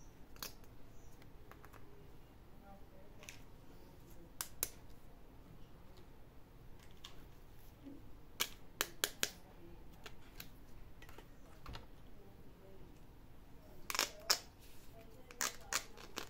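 Small plastic toy pieces clicking and tapping as they are handled and set down, in scattered groups of two to four sharp clicks.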